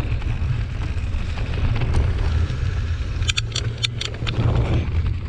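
Mountain bike riding a dirt forest trail: a steady low rumble of wind on the microphone and tyres on the ground. About three and a half seconds in there is a brief cluster of sharp clicks and rattles.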